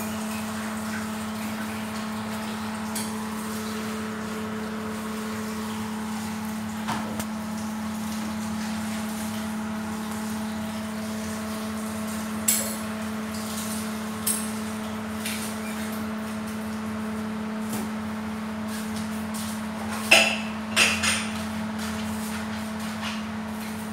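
A steady, even hum, like an appliance motor running, with a few sharp knocks and clatters, the loudest a quick cluster about twenty seconds in.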